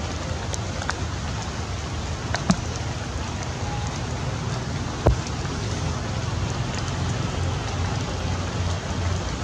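Steady rain falling, with a few sharp drop taps; the loudest come about two and a half and five seconds in.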